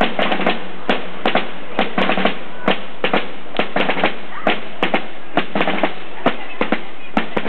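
Marching snare drums beating a steady parade rhythm, sharp rattling strokes about two to three a second.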